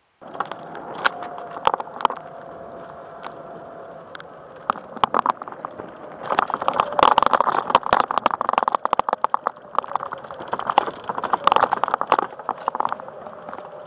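Golf cart driving over a wooden plank bridge. A steady motor whine and hum run throughout. From about four seconds in there is a dense run of clattering knocks from the loose boards under the wheels, easing off near the end.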